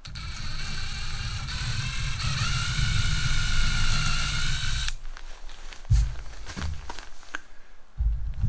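Power drill boring a pilot hole into a cedar board: a steady motor whine whose pitch steps up slightly about two seconds in, stopping about five seconds in. A few light knocks follow.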